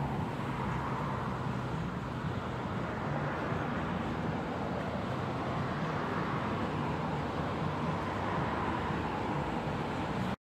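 Steady outdoor background noise, even and unchanging, that cuts off suddenly near the end.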